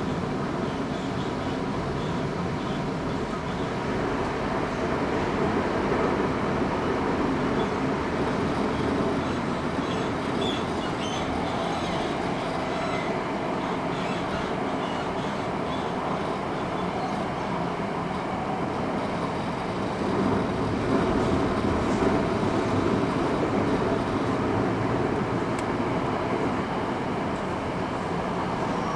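Eidan N05-series subway train running, heard from inside the car: a steady rumble of wheels on rail and running gear, swelling a little twice.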